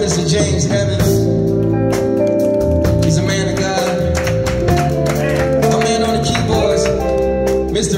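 Gospel band playing, with held chords over a bass line and a steady beat of drum hits.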